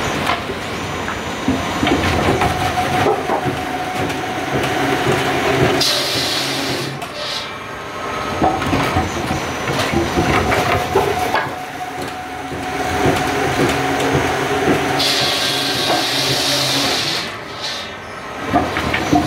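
Chinese log-peeling machine running, its electric motors and spiral steel rollers turning a log against the cutter: a loud, continuous, rough mechanical rattle. It swells and eases every few seconds as the logs are worked through, with brief dips about 7, 12 and 18 seconds in.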